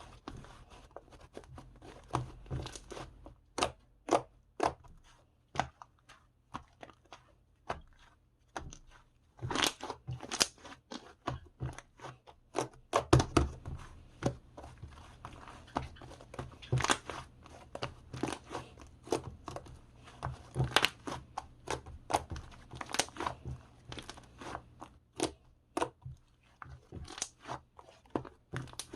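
Slime being squished and pressed by hand, giving many irregular sharp clicks and pops with short denser runs.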